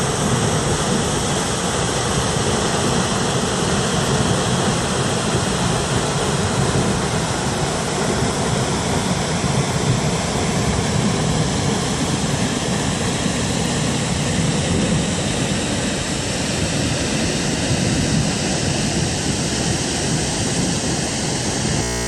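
A waterfall roaring: a loud, steady rush of falling water with no break.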